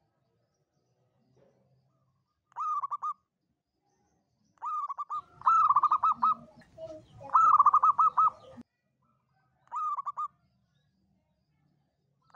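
Zebra dove (local Javanese perkutut) cooing: short phrases of rapid, staccato coos repeat every couple of seconds. In the middle a longer, louder run of coos plays over a low rumbling noise.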